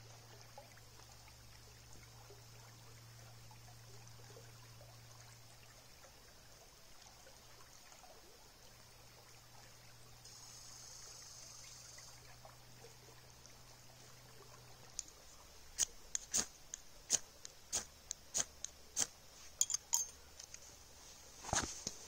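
Trickling river water with a steady high hiss. In the last few seconds a quick run of sharp clicks and knocks breaks in, and a louder rustling knock comes near the end.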